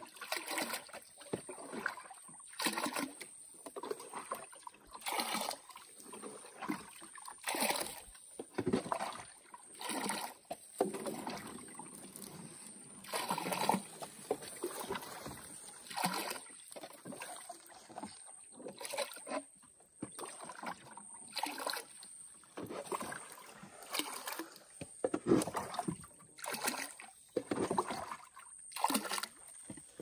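Canoe being paddled: a paddle dipping and pulling through the water about once every two to three seconds, each stroke a short swish and splash.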